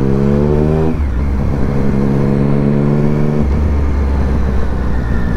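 Triumph motorcycle engine pulling under acceleration, its pitch rising through a gear. The pitch drops at an upshift about a second in and climbs again until the throttle eases off about three and a half seconds in, leaving a low drone.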